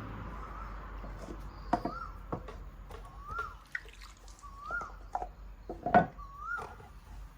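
Puppies eating: scattered sharp clicks and knocks of chewing and food or bowl contact, the loudest about six seconds in. A short call that rises and falls repeats about every second and a half over it.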